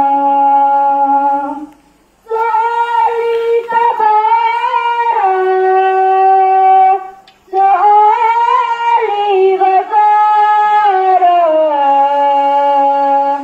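A student's solo voice singing a naat, unaccompanied, in long held, ornamented phrases whose pitch slides up and down, with short breaths about two seconds and seven seconds in.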